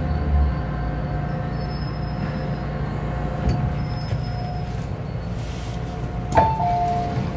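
MTR M-Train coming to a stop: the low falling hum of its traction motors dies away about half a second in, leaving a steady rumble with thin high ringing tones. About six seconds in there is a sharp clunk, then a two-note falling chime.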